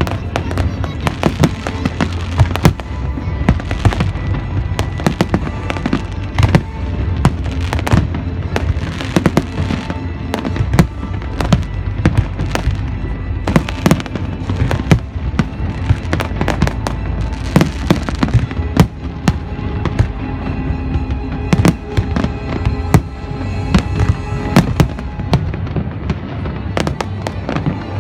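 Aerial firework shells bursting in quick succession: a dense, continuous run of sharp bangs and crackles over a low rumble.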